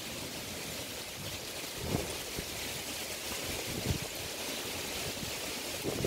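Strong wind rushing through coconut palm fronds and trees, a steady hiss with gusts buffeting the microphone about two and four seconds in and again at the end.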